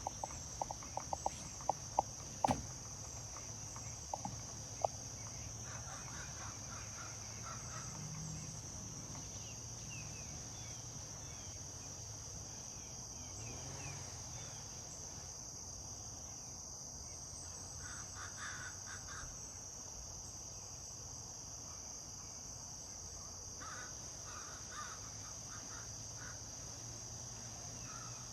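A woodpecker pecking at wood, with irregular sharp taps during the first five seconds. After that a crow makes odd, quiet calls in short bursts, several times. A steady high insect drone of crickets runs underneath throughout.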